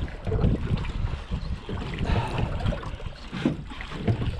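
Wind buffeting the microphone aboard a small fishing boat at sea: an uneven low rumble that swells and dips, with boat and water noise underneath.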